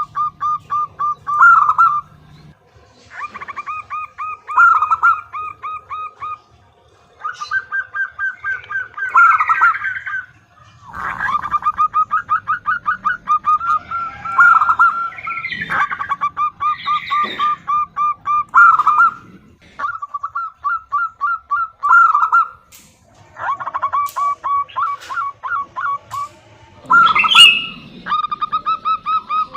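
Female zebra dove (perkutut) calling to draw a male: runs of fast, evenly spaced staccato coos, each run a few seconds long with short pauses between them. A few higher, shorter bird calls break in now and then.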